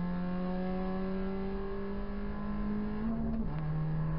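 Proton Saga BLM race car's four-cylinder engine under load, heard from inside the cabin: its note climbs steadily for about three seconds, then drops sharply and holds lower.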